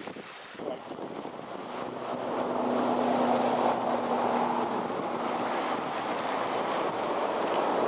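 Motorboat running past on a lake: a steady engine hum over the rush of water, getting louder about two seconds in, with wind on the microphone.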